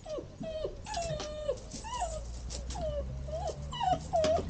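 Two-month-old Dutch Shepherd puppies whining and yipping: a string of short high whines, about three a second, some rising and some falling, loudest near the end.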